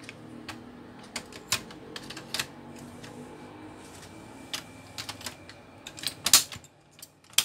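Irregular sharp plastic clicks and knocks as the ink cartridges are pushed and snapped into the Canon iP2770's print head carriage, the loudest near the end. A low steady hum runs underneath and cuts out near the end.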